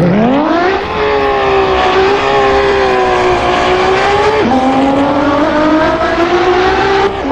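Racing engine at high revs: the pitch climbs quickly at the start and holds high, then drops suddenly once about four and a half seconds in and climbs slowly again.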